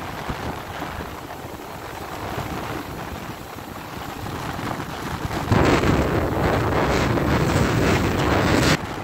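Wind buffeting the microphone over breaking surf. About five and a half seconds in it turns much louder and rumbling, then cuts off suddenly just before the end.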